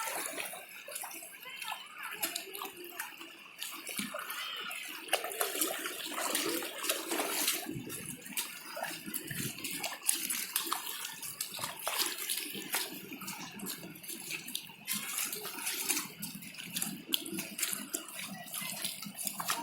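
Shallow stream water running and splashing, with many irregular small splashes.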